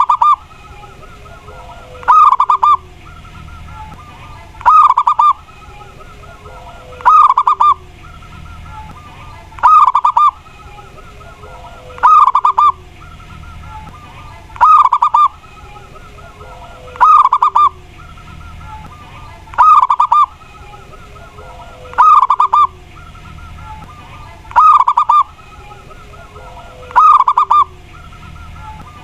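Zebra dove (perkutut) cooing: a short, loud burbling coo phrase repeated evenly about every two and a half seconds, twelve times, over a faint steady background.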